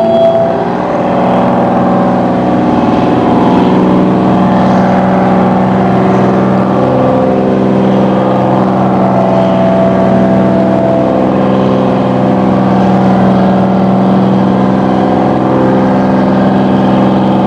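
Crew boat's Detroit Diesel engines running steadily at low speed, an even drone with a strong low hum. A fog horn's single steady tone cuts off about half a second in.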